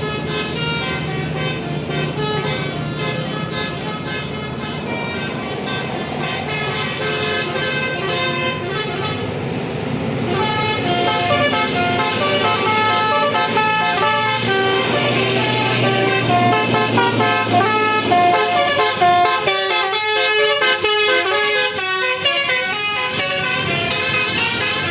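Telolet basuri musical air horn on a tour bus playing a melody, its notes stepping up and down in pitch. It grows louder and busier from about ten seconds in.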